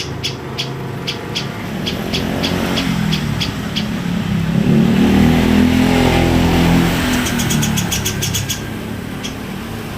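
A motor vehicle drives past, its engine note rising and then falling, loudest about halfway through. Over it a bird repeats short, high chirps about two a second, which stop while the vehicle is loudest and then come back as a quick run.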